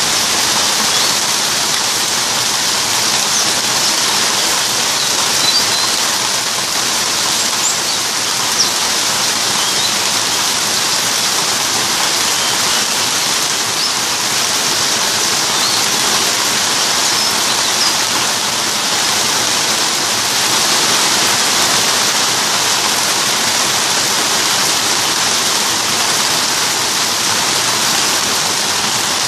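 Steady rain falling, an even hiss throughout, with a few brief faint high bird chirps in the first half.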